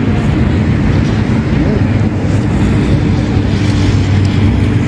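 Steady low hum of a running vehicle engine, holding an even pitch without revving.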